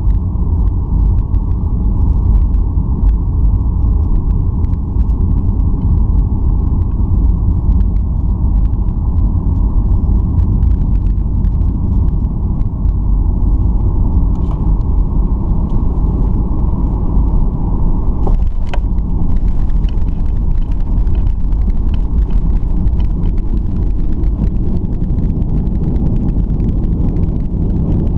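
Steady cabin rumble of a Boeing 737-800 on approach: the CFM56-7B engines and airflow heard from inside the cabin. About two-thirds of the way through there is a brief sharp sound, and the higher part of the rumble fades a little after it.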